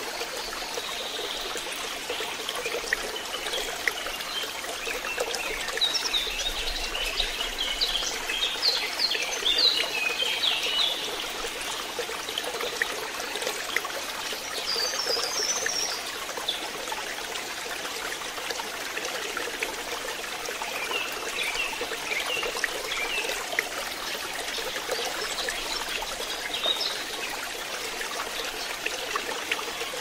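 Waterfall cascading over mossy rock ledges with a steady rushing of water, and songbirds chirping over it in several bursts of short, high notes, the busiest from about six to eleven seconds in.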